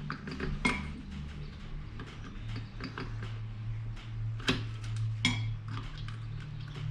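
Small metallic clicks and clinks of tools and engine parts being handled during a two-stroke engine's squish check, with a few sharper clinks about halfway through, over a steady low hum.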